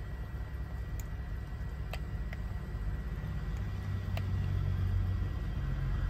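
A semi truck's diesel engine idles with a steady low rumble that grows a little louder about halfway through, and a few faint sharp clicks sound over it.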